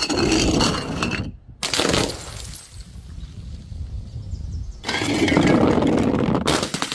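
Bottles smashing and shattering in three crackling bursts: two short ones in the first few seconds and a longer one near the end.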